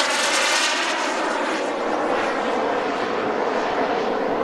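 Radio-controlled model jet's B300F gas turbine flying: a loud, steady jet rush with a thin high whine over it, its pitch sagging slightly and then rising again.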